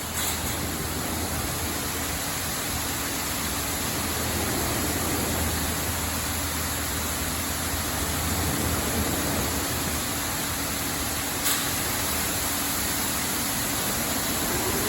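LaserWash 4000 automatic car wash running: a steady rushing noise with a faint steady hum under it, and a single short click about eleven seconds in.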